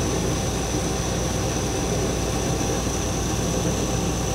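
Hardinge HLV-H super-precision toolroom lathe running steadily under power with the power crossfeed engaged: an even mechanical hum with a thin, steady high whine.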